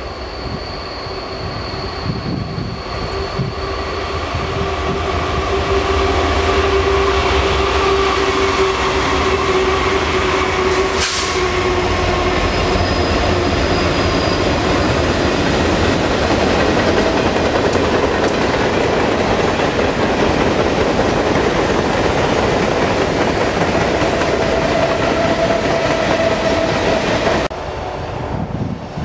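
A train rolling past on the track, its wheels and cars making a steady loud rumble with thin squealing tones from the wheels. It builds over the first several seconds, and there is one sharp click about eleven seconds in.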